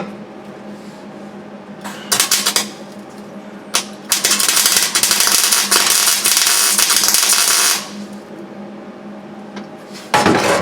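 Arc welder laying a tack weld on a sheet-metal floor patch, crackling: a couple of short blips, then a steady run of about four seconds that cuts off suddenly. A steady low hum runs underneath.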